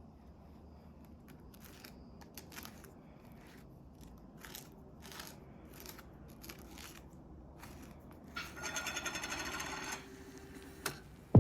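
Faint scattered clicks and small handling knocks, then a rapid rhythmic buzz, like a small motor, for about a second and a half near the end, followed by a single sharp click.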